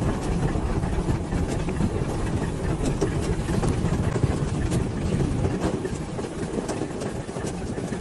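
Fishing boat's engine running steadily, a dense low rumble under rushing noise, with a few faint ticks.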